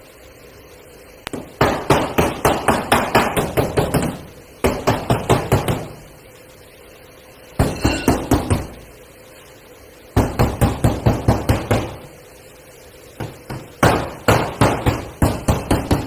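Hand hammer striking the steel body panel of a Toyota Hilux pickup: panel-beating to straighten crash-damaged bodywork by the front door pillar. The strikes come in five bursts of quick, ringing blows, about five a second, with short pauses between.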